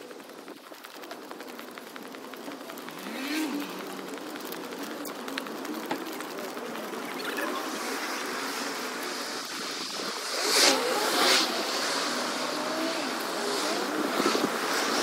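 Street traffic noise: cars passing on a town road, with a steady hiss of road noise and louder swells a few seconds in and again past the middle as vehicles go by.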